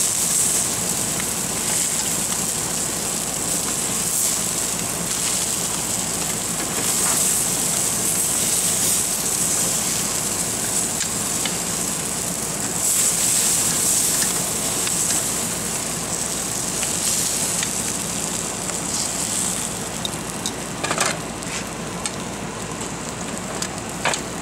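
Herb-butter-basted salmon fillets sizzling on a grill, a steady hiss that swells and fades every few seconds. A few sharp clicks near the end.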